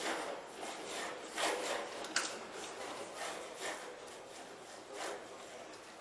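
Small shaking table rocking a stick-built model tower in a strong-earthquake test: irregular rasping and rattling noises, with a sharp click about two seconds in.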